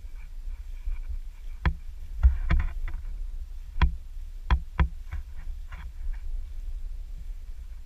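Irregular sharp knocks and brushing from a camera rig jolting as a hunting dog runs through tall grass, over a steady low rumble of wind and handling noise. There are about six knocks between about a second and a half and five seconds in, and then only the rumble.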